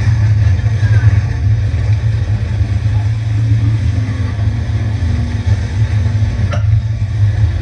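Jet ski running at speed, its engine and the wind rushing over the microphone making a loud, steady, low rumble, with a short click near the end.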